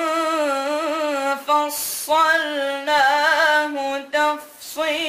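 A boy's voice reciting the Quran in melodic tajweed style, unaccompanied. He draws out long held notes with wavering ornaments, with short breaks between phrases and a sharp breath about two seconds in.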